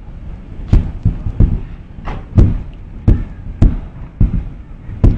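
A series of sharp bangs and thuds, about eight in five seconds at an uneven pace, each with a short low rumble after it.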